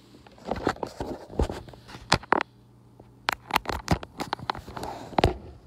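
Handling noise from a phone being moved in the hand: irregular knocks, taps and rubbing right on the microphone, over a faint steady low hum.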